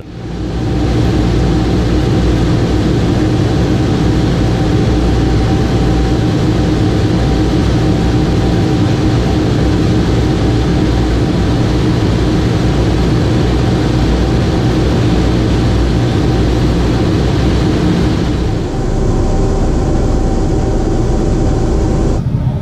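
Boeing B-29 Superfortress's four Wright R-3350 radial engines running steadily on approach to landing, heard inside the cockpit as a loud, even drone with a deep rumble; the sound eases slightly near the end.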